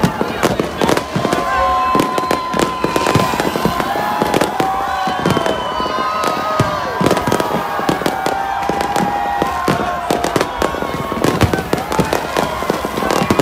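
Fireworks going off close by in quick succession, a dense run of bangs and crackles with no pause. A crowd's voices shout over them.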